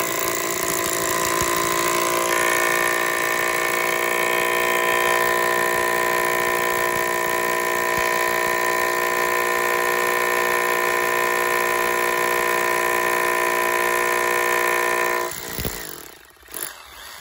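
Dekton 2603B rotary hammer drill (1050 W) boring into a concrete slab in hammer-drill mode. It runs steadily and stops about fifteen seconds in, followed by a couple of short knocks.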